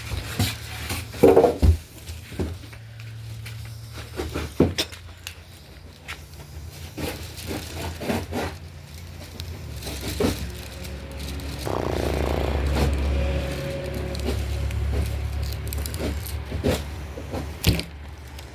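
Scraping and a scatter of knocks and clicks from handling the cardboard packaging of a new refrigerator. Partway through, a steady low rumble comes in for several seconds.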